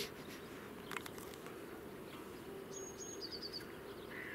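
Quiet outdoor ambience by the river: a faint, steady hum, with a couple of faint clicks near the start. About three seconds in, a small bird gives two short high whistles and a quick run of chirps.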